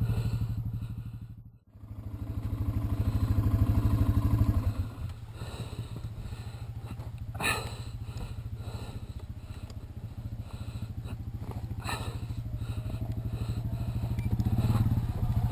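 Motorcycle engine idling steadily close by, with a brief dropout near the start and a quieter stretch from about five seconds in. Two sharp knocks come in the middle.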